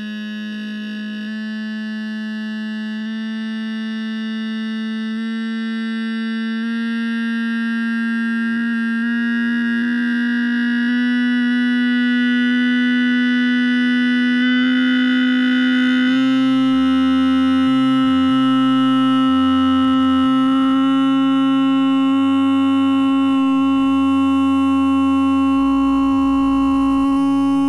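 A steady electronic tone with many overtones, slowly rising in pitch and growing louder. Low buzzy notes flicker in and out beneath it in the second half.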